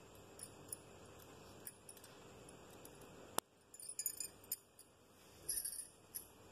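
Faint jingling and clinking of bangles and neck chains as hands arrange the jewellery, in a few short clusters, with one sharp click about three and a half seconds in.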